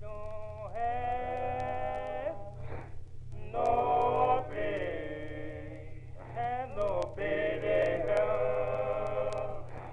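Music: a male voice sings long, sliding held notes in three slow phrases over a steady low drone.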